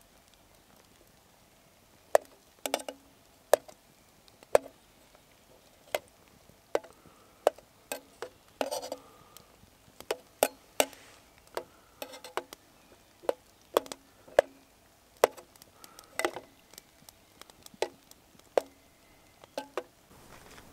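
Metal spoon clinking and scraping against a metal pot while stirring pea-soup mix into water: sharp irregular clinks, about one or two a second, starting about two seconds in, with a longer scrape about halfway through.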